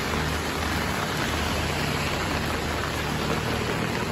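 Heavy rain pouring down steadily, with a steady low hum underneath.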